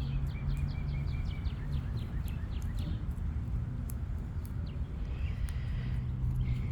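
A songbird singing a fast series of repeated chirping notes for the first few seconds, with a few more chirps later, over a steady low outdoor hum.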